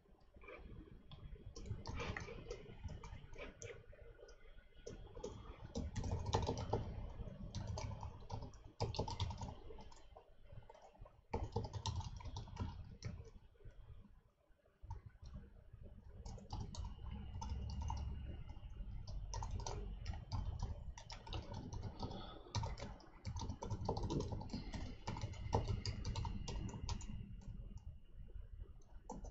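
Typing on a computer keyboard in bursts of rapid key clicks, with a short pause about halfway through.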